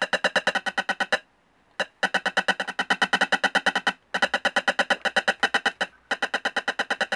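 Loudspeaker of a homemade infrared remote-control tester buzzing in a rapid train of repeating pulses while a remote's button is held, sounding out the infrared code it transmits. The buzz stops for about half a second just after a second in, with a click as it restarts, and drops out briefly around four and six seconds in.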